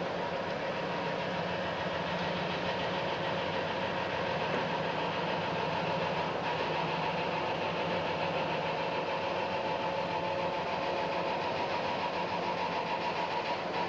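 ST44 (M62) diesel locomotive's two-stroke V12 diesel engine running steadily at low power as the locomotive moves slowly off, with a steady whine on top of the engine sound.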